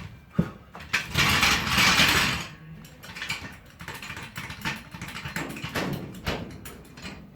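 Steel floor panel being shifted and wrestled into a car body shell: a sharp knock, a loud scraping rasp about a second in, then lighter clanks and rattles of metal on metal.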